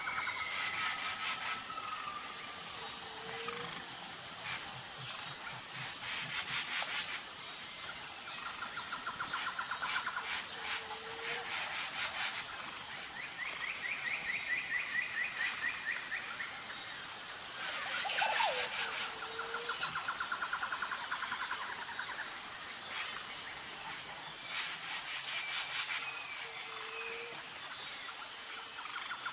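Tropical forest ambience: a steady, high pulsing insect chorus under repeated trilling bird calls, with a short low call recurring every several seconds.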